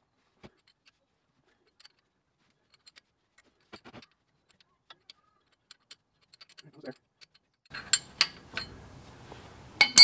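Faint ticks and clicks of a wrench turning a hex-key bit in a Vanagon manual transmission's drain plug as it is loosened. Sharper metal clicks come near the end, then a loud ringing clink.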